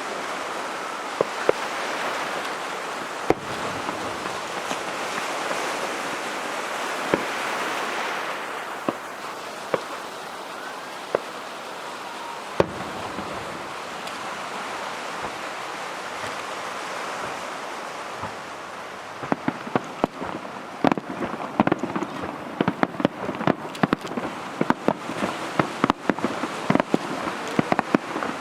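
Fireworks display: a dense hissing crackle from bursting shells, broken by a few single sharp bangs. About two-thirds of the way through it gives way to a rapid run of many sharp cracks and pops.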